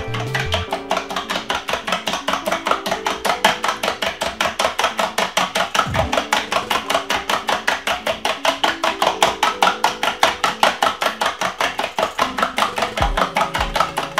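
Two eggs being beaten with a fork in a stainless steel bowl: fast, even clicking of metal on metal, about five strokes a second, kept up almost without a break.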